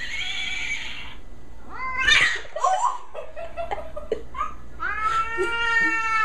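A toy horse's recorded whinny plays during the first second. Then a cat yowls, first in short broken cries and then in one long drawn-out yowl near the end.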